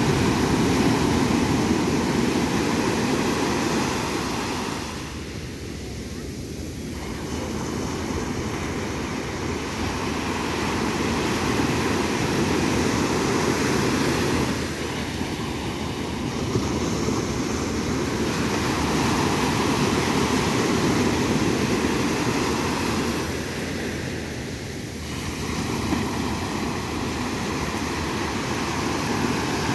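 Sea surf breaking and washing up a sandy beach: a steady rush of water that swells and eases, dropping back three times as one wave spends itself before the next comes in.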